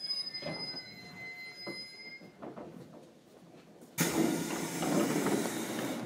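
Inside a JR Kyushu 811 series electric train car: faint clicks and rattles, then about four seconds in a sudden loud rushing noise that holds for about two seconds.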